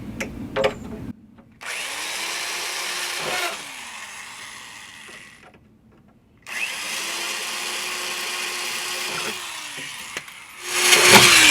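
Power drill drilling out old aluminium pop rivets. It runs in bursts with short pauses, and the last burst near the end is the loudest.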